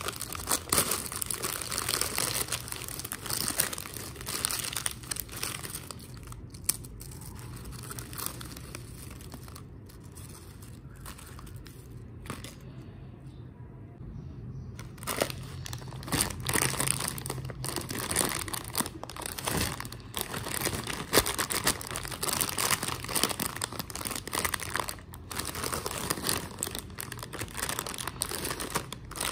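Foil-lined Lay's potato chip bags crinkling and crackling as hands open and handle them, with a quieter stretch in the middle.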